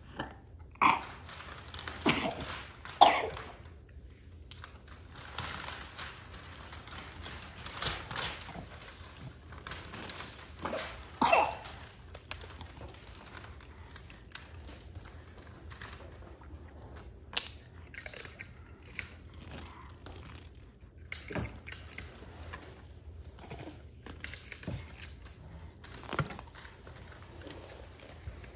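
Scattered rustling, crinkling and small handling knocks, louder and busier in the first few seconds, with a few short vocal sounds mixed in.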